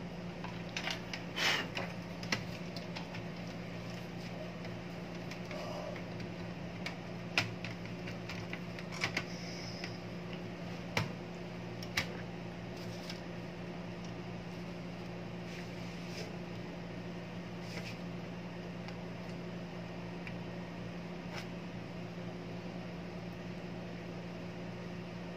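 Steady low electrical hum with scattered sharp clicks and light taps as a circuit board is set into a metal DVR chassis and a screwdriver is handled.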